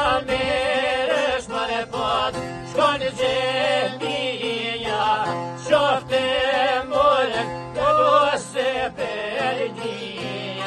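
Male voices singing an Albanian folk song in long, ornamented, wavering phrases, accompanied by plucked long-necked lutes.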